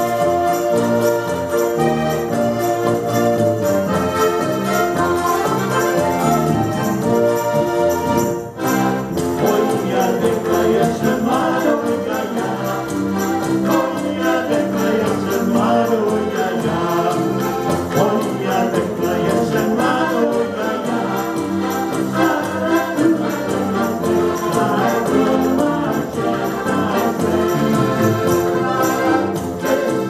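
An ensemble of button box accordions playing a tune together, with a brief break about eight and a half seconds in.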